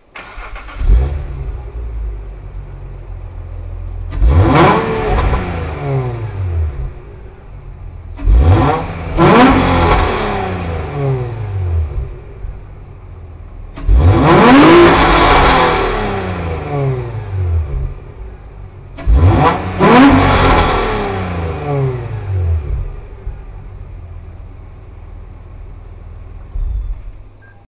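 Hyundai Tuscani Elisa 2.7-litre V6 exhaust, fitted with 6-2-1 headers, a catalytic converter delete and a racing cat-back system: the engine idles and is revved four times, each rev rising quickly in pitch and falling back to idle, some with a second quick blip.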